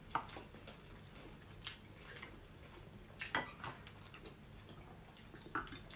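Faint, irregular clinks and taps of metal forks and spoons against plates and bowls during eating.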